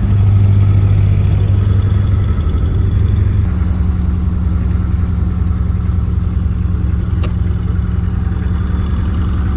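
Narrowboat engine running steadily as the boat cruises, a deep even drone whose note shifts slightly about three and a half seconds in.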